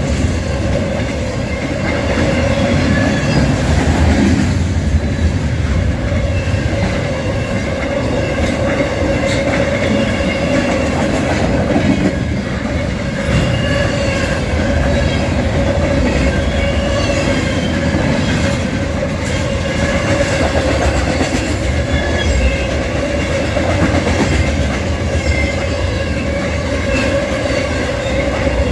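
A CSX freight train rolling past, a steady loud rumble of wheels on rail with scattered clicks and a steady whining tone over it, unchanged throughout.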